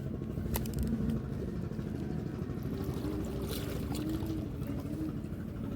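Steady low rumble of waterside ambience with water sloshing, broken by a few faint sharp clicks.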